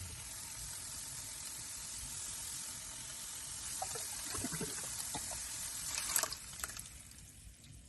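Food sizzling in a frying pan, a steady hiss, with a few light clinks of a utensil against the pan. The hiss dies away about six and a half seconds in.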